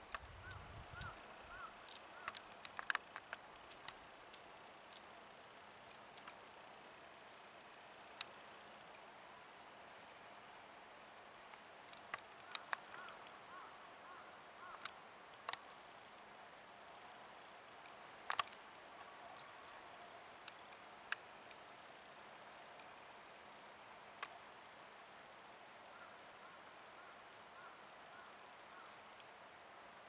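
Long-tailed tit of the white-headed Hokkaido race (shima-enaga) calling. The calls are thin, very high, short notes, scattered and in several louder bunches. They stop a few seconds before the end.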